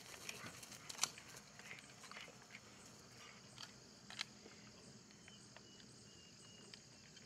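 Near silence: faint outdoor field ambience with scattered light clicks and a few faint, short, high chirps.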